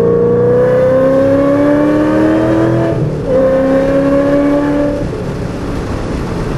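Shelby GT500's V8 heard from inside the cabin under hard acceleration, pitch rising, with a quick upshift about three seconds in, then pulling again before lifting off about five seconds in, leaving road and wind noise.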